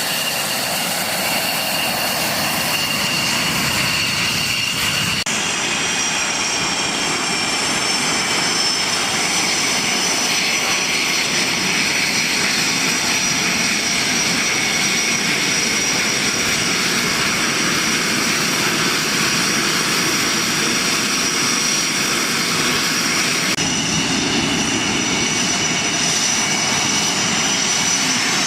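Military aircraft engines running loud and steady overhead: a broad rushing noise with a high turbine-like whine. The sound shifts abruptly twice, about five seconds in and near the end.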